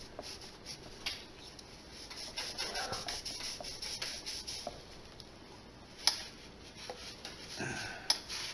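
Hand wiping Gojo hand cleaner off the painted cast-iron head of a vintage Minnesota sewing machine with a rag: faint, uneven rubbing and scuffing, with a sharp click about six seconds in.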